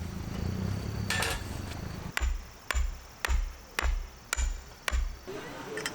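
Six sharp, evenly spaced knocks, about two a second, each with a dull thump underneath, after a low steady hum that stops about two seconds in.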